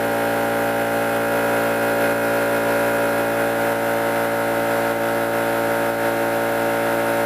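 Shop air compressor running steadily, its motor giving a constant hum.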